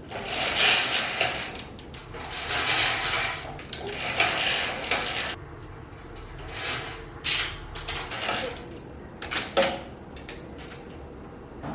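Handling noises: several long scrapes or rustles in the first five seconds, then scattered sharp clicks and knocks, like dishes or utensils being moved about.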